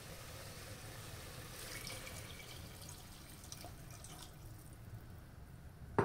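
Water being poured into a pressure cooker over browned chicken and chopped tomatoes, a faint steady pouring and splashing.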